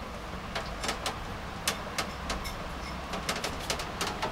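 Raindrops ticking irregularly on a window and its sill, a few sharp ticks a second over a low steady rumble.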